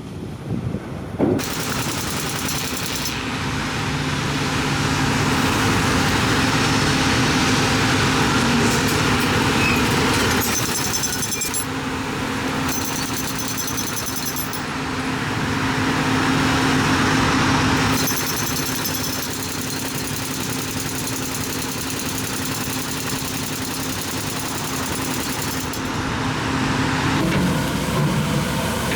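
Heavy construction machinery running loudly: a steady engine drone under a dense rattling clatter, the sound shifting abruptly several times.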